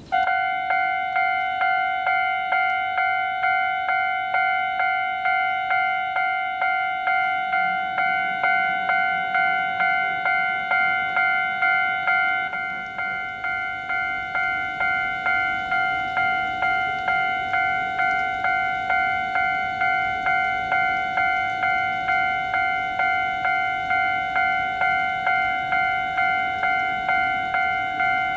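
Japanese railway level crossing warning bell ringing, a pitched ding repeated a little under twice a second; it starts abruptly and rings on steadily, dipping slightly in loudness about 13 seconds in.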